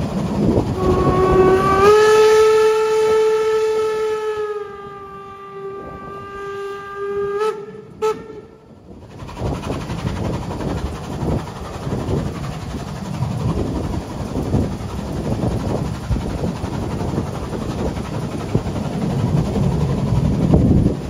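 Steam whistle of a Saxon VII K narrow-gauge tank locomotive blowing one long blast of about seven seconds, stepping up slightly in pitch about two seconds in and fading toward its end; it is sounded at a 'P' whistle board, the signal to whistle before a crossing. After it stops, the train's steady running rumble and rail clatter.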